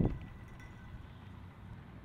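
A loud sound cuts off right at the start, leaving a steady low hum with a faint high tone above it.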